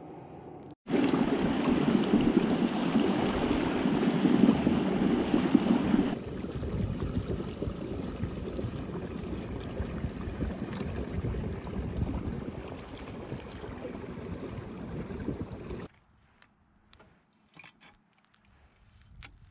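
Steady rushing and splashing of water along a fishing kayak's hull as it travels across open lake water. It starts abruptly about a second in, is loudest for the first few seconds, then carries on somewhat quieter and cuts off suddenly near the end, leaving a few faint clicks.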